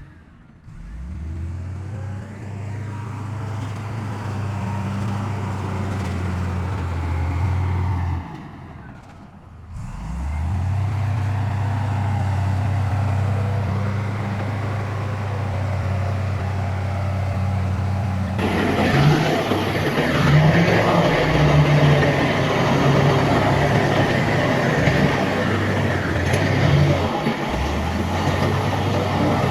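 Heavy diesel engines of earthmoving machines (dump trucks and a bulldozer) running with a steady low drone. The drone drops away briefly about eight seconds in, then picks up again with rising pitch as an engine revs. About eighteen seconds in, the sound changes suddenly to a louder, rougher engine rumble with clatter.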